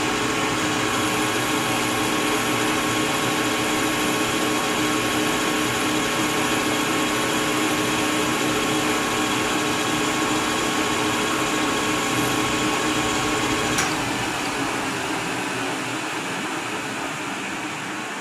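Metal lathe running steadily with a motor whine while turning a rifle barrel's muzzle end down to the major diameter for a 1/2-28 thread. About three-quarters of the way through there is a click, the whine cuts off, and the running sound slowly fades.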